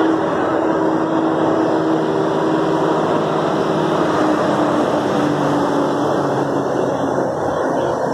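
Street traffic: motor vehicle engines running close by, with a steady engine hum that fades out about five or six seconds in.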